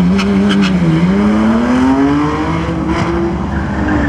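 Fifth-generation Camaro drag car launching off the line: the engine is held at raised revs for about a second, then its note climbs steadily under full-throttle acceleration for about two seconds and drops back near the end as it pulls away down the strip.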